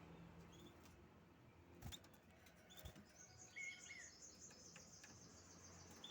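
Canary giving faint, scattered short chirps, with a brief rapid high trill a little past the middle. Two soft clicks come between the chirps.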